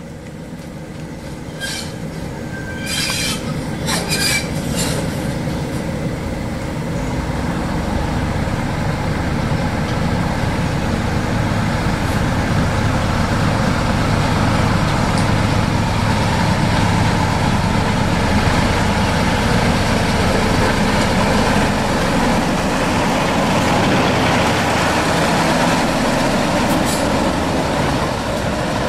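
Railway train on the move: a few brief wheel squeals and clicks in the first few seconds, then a steady running rumble that builds up and holds.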